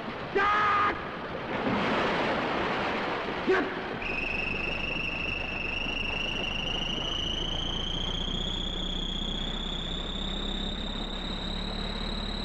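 Monster-show sound effects: a giant monster's short, loud, pitched cry, then a burst of noise. From about four seconds in, a thin electronic tone rises slowly in pitch over a steady wind-like hiss.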